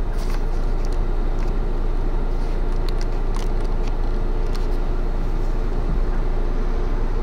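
Steady road and wind noise of a moving vehicle: an even rumble with a faint steady hum and a few light ticks.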